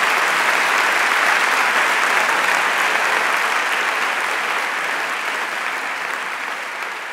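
Audience applauding, the clapping slowly fading toward the end.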